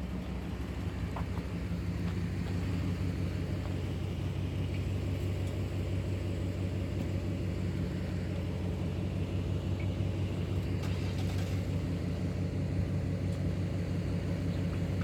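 Steady low rumble and hum of a car's engine and cabin, heard from inside the car.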